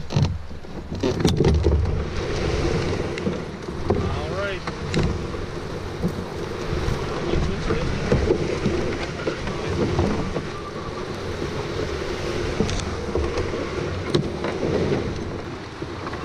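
Canoe hull scraping and rustling through brush and spruce branches as it is slid down a steep slope on a rope, with several sharp knocks of the hull against branches or ground.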